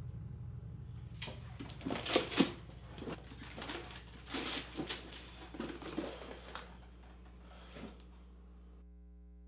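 Paper rustling and crinkling in a run of irregular bursts, the loudest about two seconds in, after a low rumble dies away at the start.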